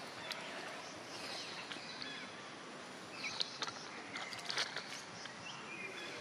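Dry leaves crackling and rustling as a baby monkey handles a dry leaf and chews a stick, with a cluster of sharp clicks in the second half.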